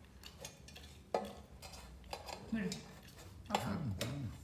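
A small child's hand scraping and knocking inside a metal cooking pot, making a few sharp metallic clicks, with brief vocal sounds near the end.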